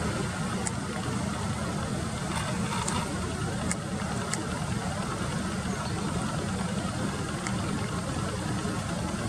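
Steady low rumbling background noise, with a few faint, brief high ticks at irregular moments.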